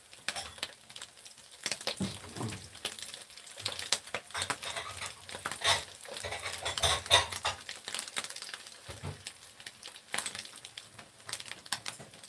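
Sausage slices frying in plenty of oil in a pan, the oil crackling and spattering in quick irregular pops. Chopsticks tap and scrape against the pan as the slices are turned, busiest in the middle.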